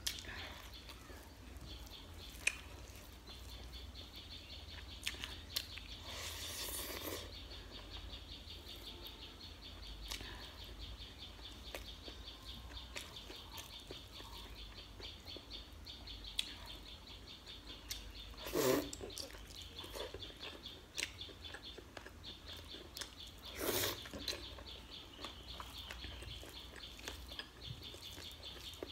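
Close-up eating sounds: a hand mixing and squishing rice and chicken gravy on a steel plate, with chewing, lip smacks and scattered clicks, and louder noises twice in the second half. A steady high-pitched chirping runs underneath.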